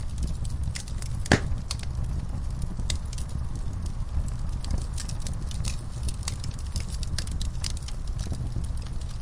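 Wood fire burning in a fireplace: irregular crackles and snaps over a steady low rumble of the flames, with one louder pop about a second in.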